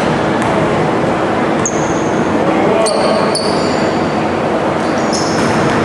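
A basketball bounced a few times on a hardwood gym floor at the free-throw line, over a loud, steady hall noise. A few short high squeaks come in around the middle and near the end.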